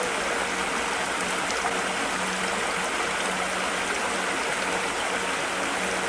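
Shallow creek flowing over rocks and riffles, a steady, even rush of water.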